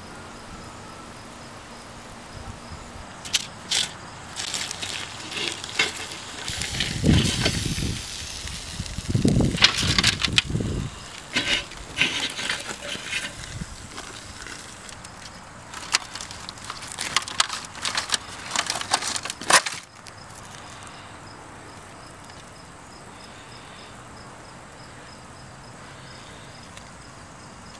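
Handling noise around an aluminium foil pan: scattered clicks, scrapes and crinkling, loudest about 7 to 11 seconds in with heavy rumbling bumps. It stops about 20 seconds in, leaving a steady faint hiss.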